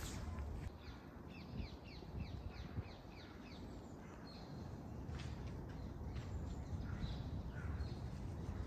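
Birds calling outdoors: a quick run of short, falling chirps for about three seconds, then a few scattered calls, over soft footsteps on a path.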